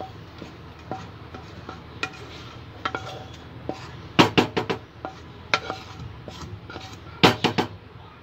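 A non-stick frying pan and a spoon knocking and scraping against a metal cooking pot as fried nuts are tipped into the milk. Scattered light clinks, with two clusters of sharp knocks, about four seconds in and again near the end, over a low steady hum.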